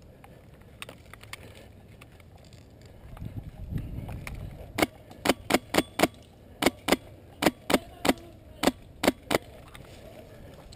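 Airsoft gun fired shot by shot, about a dozen sharp cracks in quick, uneven succession starting about five seconds in, after a low rustling rumble.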